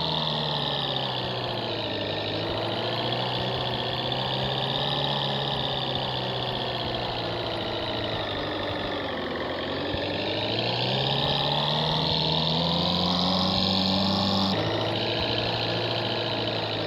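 Off-road jeep's engine running, its pitch slowly sagging and rising as the revs change, with an abrupt jump in the sound about two-thirds of the way through.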